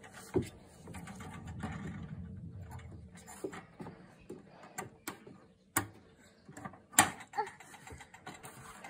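A round dial thermometer on a wooden railing being pawed by a cat and poked by a baby's hand, giving scattered light clicks and knocks. The loudest comes about seven seconds in. A low rumble fills the first few seconds.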